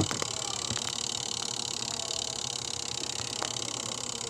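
Twin-tub washing machine's spin-dryer motor running with a steady whirring hum, after a sharp click at the start. It turns weakly even with a new capacitor and is running hot: the motor itself is failing.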